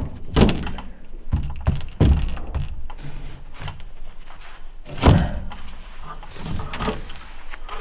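Irregular dull thunks and knocks as a long ribbed ceiling panel is pushed and bumped up against the ceiling framing by gloved hands to squeeze it into place, the loudest knock about five seconds in.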